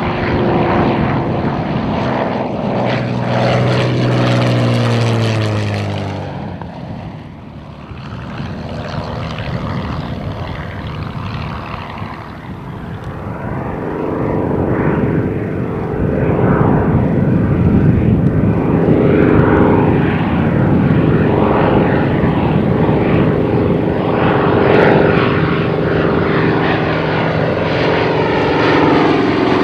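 A Curtiss P-40's V12 piston engine running as the fighter passes, its pitch falling about five seconds in. After a brief lull, an F4U Corsair's 18-cylinder radial engine grows louder and runs steadily as it approaches and passes.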